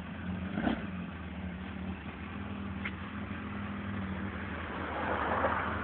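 Suzuki GSX1400's inline-four engine idling steadily, with a brief swell of noise about five seconds in.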